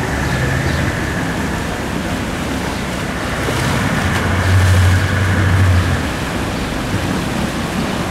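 Motorboat water taxis running on a canal: a low engine hum that swells from about four seconds in to about six, over a steady wash of churning water.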